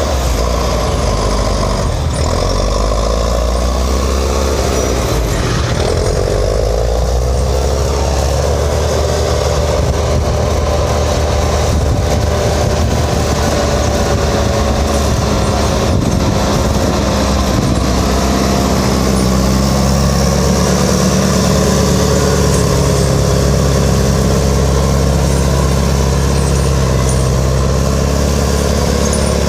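Heavy logging equipment's engine running steadily, with a whine that slowly rises and falls in pitch.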